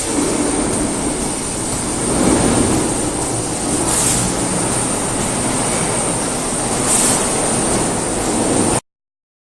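CNC polishing machine running: a steady high-pitched whine over a constant noisy rush, with short louder hissing surges about every three seconds. The sound cuts off abruptly near the end.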